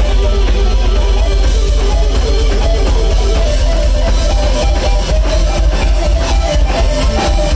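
Live rock power trio playing loud: electric guitar and electric bass over a drum kit, with heavy low end.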